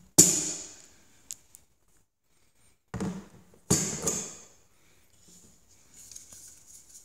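AR-15 upper receiver assemblies being handled on a wooden table and kitchen scale. There is a sharp knock with a brief ringing fade about a quarter second in as the upper is lifted off the scale, and two more knocks around three and four seconds in. Faint handling rustle follows near the end.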